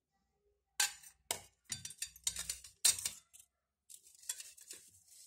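Stainless steel plate clinking and scraping against a steel bowl as chopped capsicum is tipped in. A run of sharp clinks, the loudest about three seconds in, gives way to a softer scraping rustle.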